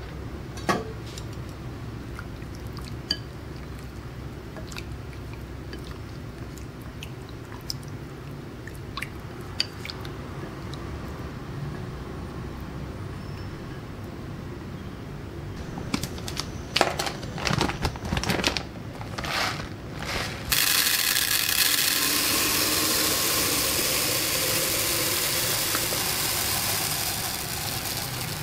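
Light clicks and taps of a seasoning shaker and a wooden spoon stirring diced chicken in its marinade in a glass bowl, then some sharp rustling clicks. About two-thirds in, a steady hiss starts suddenly as dry germ rice is poured from a bag into a plastic container.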